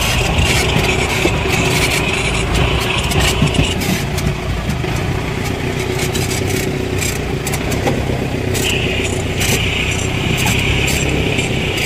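4×4 off-road jeep engine running steadily, with frequent knocks and rattles from the vehicle jolting over a rough track.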